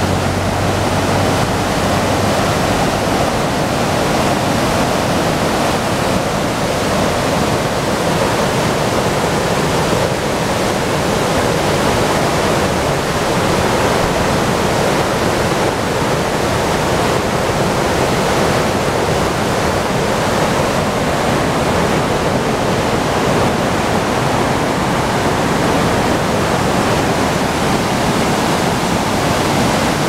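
Fast mountain river rushing through whitewater rapids over boulders: a loud, steady rush of water.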